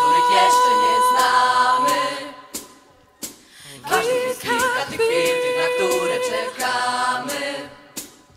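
Background music: several voices holding long, wavering sung notes together, fading out about two seconds in and starting again a second or so later.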